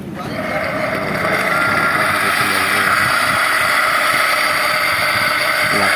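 Electric rickshaw's 1500 W drive motor spinning up and running with a loud, steady whining grind, a noise the mechanic puts down to a failed bearing.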